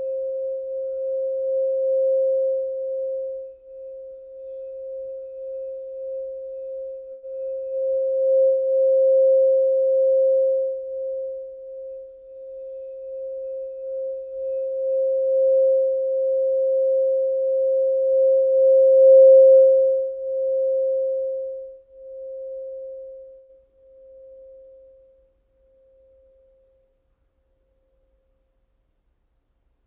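Singing bowl sounding one pure, steady tone that swells louder and softer several times, loudest a little past the middle. It then fades away in pulses and dies out near the end.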